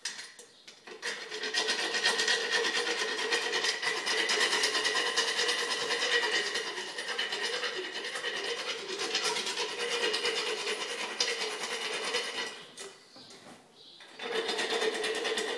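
Equine dental float grinding a pony's teeth: a steady rasping that goes on for about twelve seconds, stops briefly near the end, then starts again. It is the final polish of the teeth.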